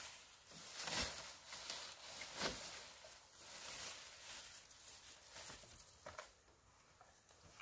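Rustling of cut bamboo leaves and dry litter as a felled bamboo pole is picked up and lifted onto the shoulder, with soft knocks about one second and two and a half seconds in.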